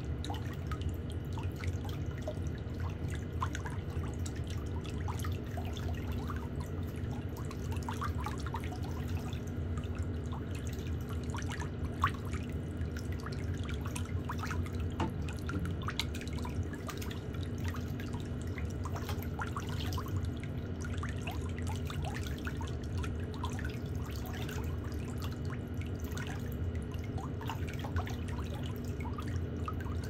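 Steady low hum with scattered small clicks and drips: water in a pedicure spa basin, and stainless steel cuticle nippers snipping around the toenails.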